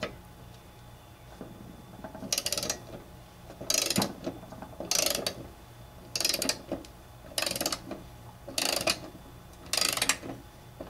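Socket wrench ratchet clicking in seven short runs, about one every second and a quarter, as the handle is swung back between turns while loosening a lawn mower's blade bolt.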